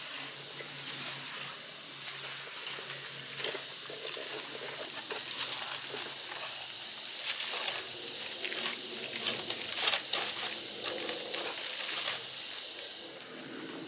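Paint roller on an extension pole being worked back and forth in a foil-lined paint tray, the aluminium foil crinkling and crackling under each stroke.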